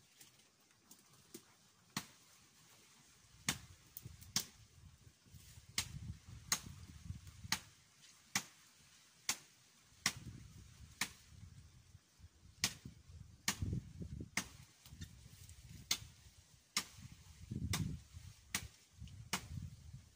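Woody stems cracking in thick brush as it is cut or broken by hand. The sharp cracks come irregularly, about one a second, over a low rustling of leaves and branches.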